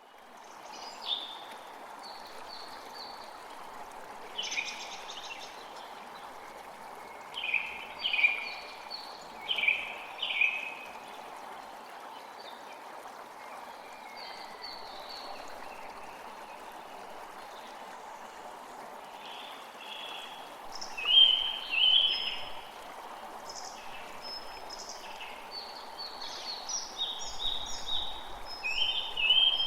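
Steady rain hiss, with songbirds chirping over it in short repeated calls that come in clusters, the loudest about two-thirds of the way through.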